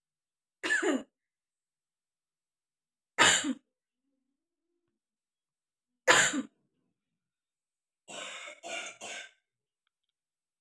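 A woman sneezing three times, about three seconds apart, each a short burst that falls in pitch, brought on by tickling the nose with a twist of paper. Three quieter short bursts follow close together near the end.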